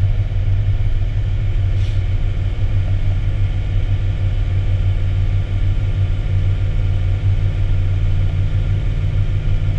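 Fire engine driving at highway speed, heard from inside the cab: a steady low rumble of engine and road noise.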